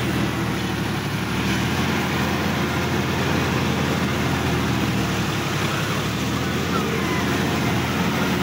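Sonalika DI-50 RX tractor's diesel engine running steadily as the tractor drives along, heard close up from the driver's seat.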